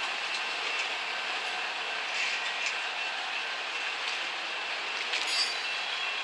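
Union Pacific freight train's boxcars rolling past, a steady clatter and rumble of steel wheels on the rails, with a brief high wheel squeal about five seconds in.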